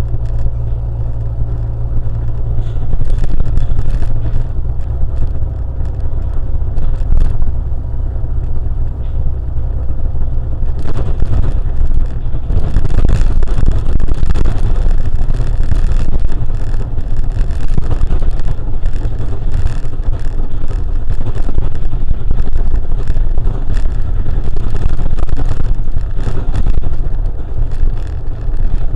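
Car on the road: steady engine and road noise, heavy in the low end, with louder rushing tyre and wind noise from about twelve seconds in.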